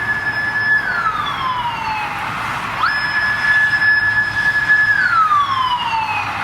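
Japanese police motorcycle siren wailing: a high tone held steady, then sliding down in pitch. It falls just after the start, jumps back up about three seconds in, holds for about two seconds, and slides down again near the end.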